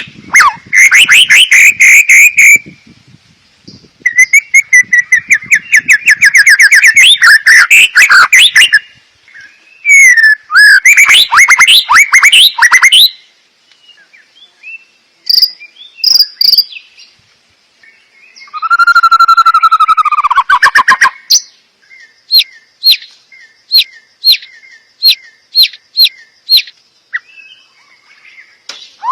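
Loud, varied song of a white-rumped shama (murai batu), a recorded song-filling track: long rich phrases of whistles and rapid trills. Near the end it turns to a string of sharp, evenly spaced calls about two a second.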